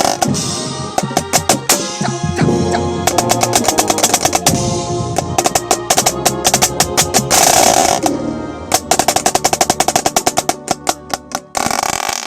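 Drum and bugle corps snare drum played close up: fast strokes and rolls, with several long loud rolls, over the rest of the corps' music.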